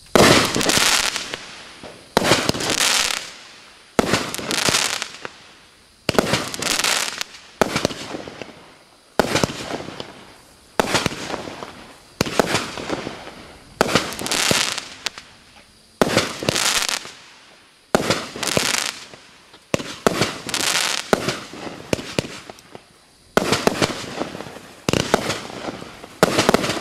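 Sky Painter 'Big Foot' 20-shot firework cake firing its shots one after another, roughly one every one and a half to two seconds. Each shot is a sharp report followed by a dwindling crackle as the stars burn out.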